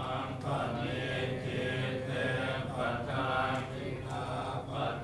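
Buddhist monks chanting together in a low, steady chant.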